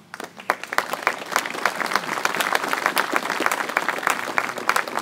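Crowd applauding: dense clapping from many hands that breaks out suddenly and carries on steadily.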